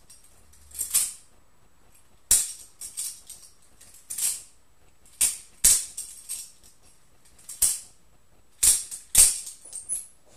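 Balisong butterfly knife being flipped: metallic clacks and rattles as the handles swing round and knock together, in about six short flurries with brief pauses between them.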